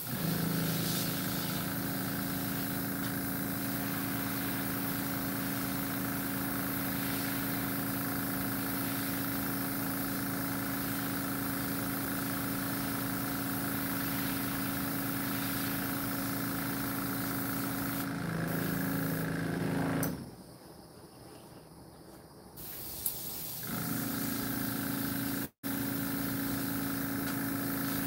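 Airbrush compressor motor running with a steady hum, shutting off about twenty seconds in and starting up again about three seconds later.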